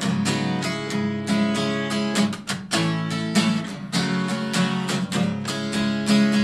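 Acoustic guitar strummed in a steady rhythm of chords, with no voice: the instrumental intro of a song.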